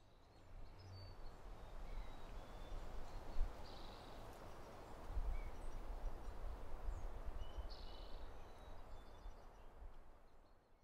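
Faint outdoor ambience: a steady hiss with low wind rumble and a few short, high bird chirps, fading out at the end.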